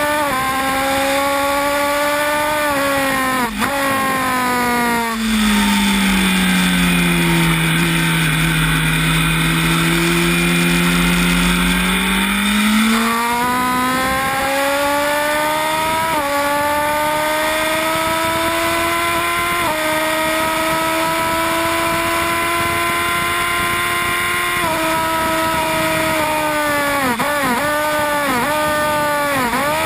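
Honda 1000 cc inline-four superbike engine at full race pace, heard onboard with wind noise. It drops in pitch through a long slow corner about five seconds in, pulls back up and shifts up through several gears, then goes down through the gears with quick throttle blips under braking near the end.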